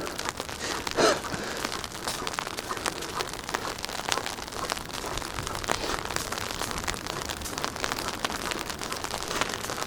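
Sleet and freezing rain coming down steadily: a constant hiss dotted with many fine ticks of ice pellets striking surfaces.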